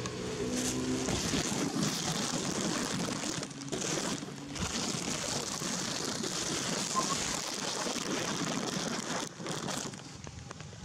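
Steady hiss of rain falling, with a few brief breaks. A low steady hum fades out about a second in.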